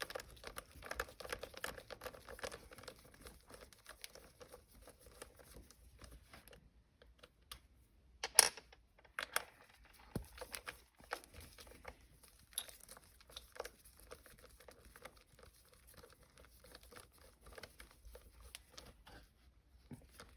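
Hands and tools working the stock shifter's top section out of the console: scattered small clicks, rattles and rustling, with one sharp knock about eight seconds in.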